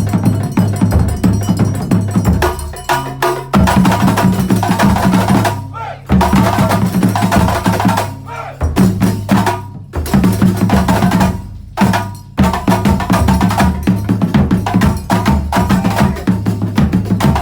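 Ensemble of terbang frame drums playing a fast, dense interlocking rhythm, deep booming strokes mixed with sharp slaps, breaking off briefly a few times before the pattern resumes.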